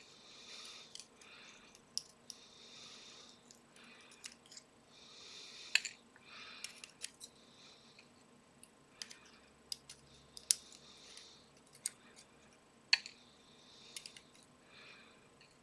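Small metal lock parts being handled while a pin-tumbler lock is taken apart, heard as irregular sharp clicks and taps with short scraping rustles between them.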